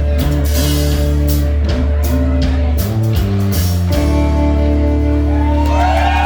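Rock music with guitar and drums. The drum hits stop about four seconds in and a held chord rings on, with a few bending notes near the end.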